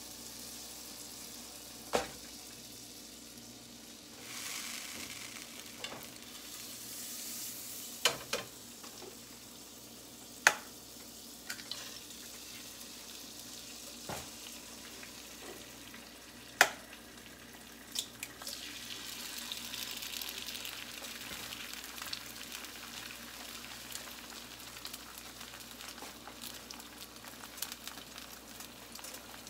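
Eggs frying in oil in a nonstick skillet, a steady sizzle that grows louder about two-thirds of the way through. Several sharp knocks and clicks break through it, the loudest about ten and seventeen seconds in.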